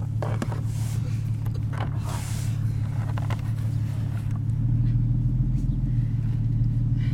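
Jeep engine running with a steady low hum, growing louder about four and a half seconds in as it pulls away under load, towing a snow tube.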